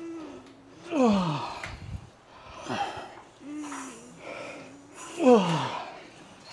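A person straining through slow cable kickback reps: two loud, drawn-out falling grunts about four seconds apart, with hard breaths in between.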